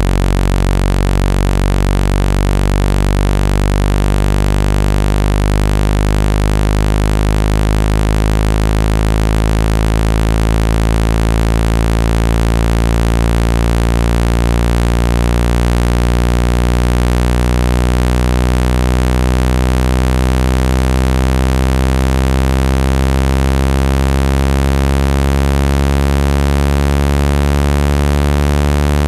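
Loud, low electronic buzzing tone with many overtones, a synthesized speaker-cleaning tone played to vibrate water out of a phone speaker. It holds steady, with its lowest note shifting slightly near the end.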